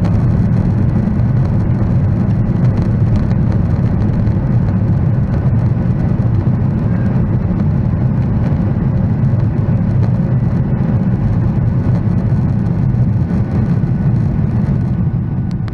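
Steady engine and airflow noise inside the cabin of a Boeing 737-900ER, its CFM56-7B turbofans at high thrust during the takeoff and initial climb. The noise begins to fade near the end.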